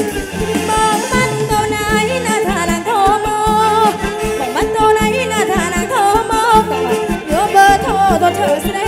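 Live kantrum band music: a steady drum-kit beat and bass under a bowed two-string fiddle and a woman singing with sliding, wavering pitch.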